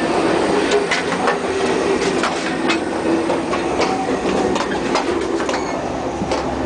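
Moving railroad car heard from inside: steady running rumble with irregular clicks and rattles.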